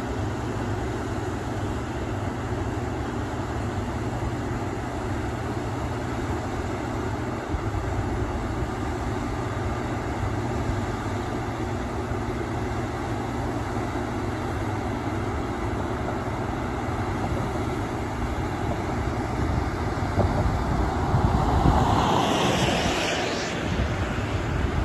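Steady rush of turbulent water churning out of the outlets beneath a hydroelectric powerhouse into the tailrace. Wind buffets the microphone, and the sound swells for a few seconds near the end.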